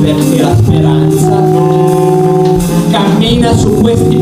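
Live jazz band music: a hollow-body electric guitar plays held chords that change about every second, with the band behind it.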